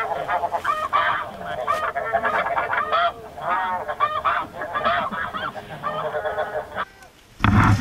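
Snow geese calling: a dense chorus of many overlapping high honks. The calling stops about seven seconds in, and a sudden loud, rough noise starts right at the end.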